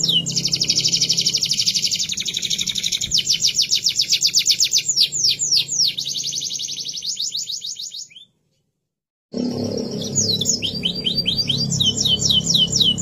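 Domestic canary singing: fast trills of repeated high down-sweeping notes that shift from one rolling phrase to the next. The song breaks off into silence for about a second just past the middle, then resumes with a new trill.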